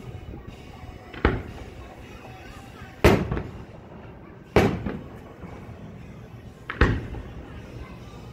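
Aerial firework shells going off: four sharp booms a second or two apart, each trailing off in an echo, with the third the loudest.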